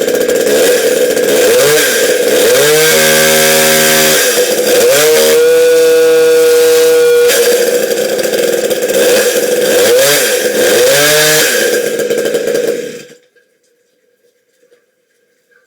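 Small McCulloch two-stroke chainsaw running and being revved: the throttle is opened and released several times, rising and falling in pitch, and held at high revs twice for a second or two. The engine cuts off about 13 seconds in.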